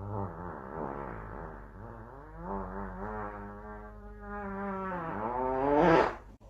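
Dog howling in a long, wavering cry that swells in pitch and loudness to a peak near the end, then stops abruptly.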